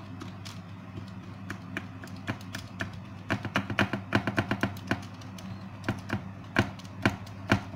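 A fork pricking the edge of raw puff pastry, its tines tapping down through the parchment onto the baking tray. Quick, irregular taps, sparse at first and coming faster from about three seconds in.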